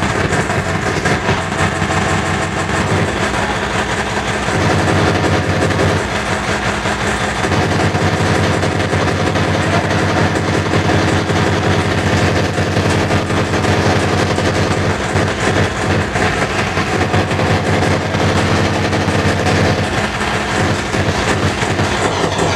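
Loud hardcore techno played over a club sound system from a DJ's turntables: a fast, hard, distorted kick drum under a steady low bass, which shifts a few times.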